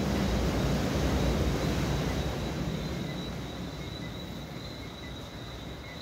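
Ocean surf breaking on a rocky shore. The wash of a wave swells to its loudest in the first two seconds and then slowly ebbs, with a thin, steady high tone running underneath.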